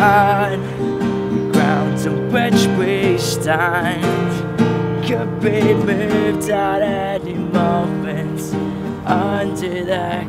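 A man sings long, wavering notes over a strummed acoustic guitar in an acoustic folk song.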